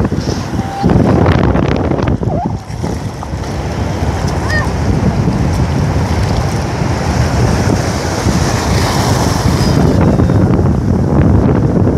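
Shallow surf washing over the beach, with wind buffeting the microphone: a loud, steady rush of noise.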